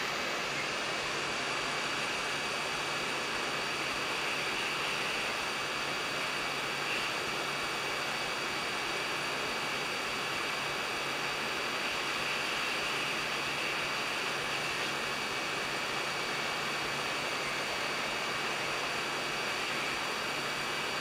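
Hot air rework station blowing through a 5 mm nozzle with its airflow turned down: a steady hiss of air with a faint low hum, as it heats lead-free solder to desolder a surface-mount chip.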